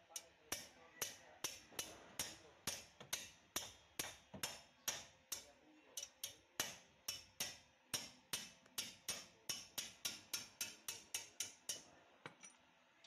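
Ratchet wrench clicking in quick repeated strokes on the wheel bearing hub nuts behind the back plate: about two to three sharp metallic clicks a second, quickening toward the end and stopping shortly before the end.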